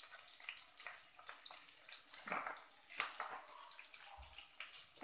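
Onion and minced garlic sizzling in hot oil in a pot, a faint steady crackling sauté, with a few louder pops around the middle.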